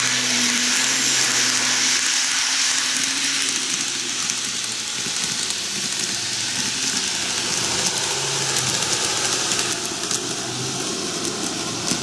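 N-gauge model electric trains of the JR 485 and E653 series running on the rails: a steady motor hum under a hiss of wheels on track. The hiss is loudest at the start as one train passes close by, then eases as it runs off round the curve, and the sound changes near the end as the second train approaches.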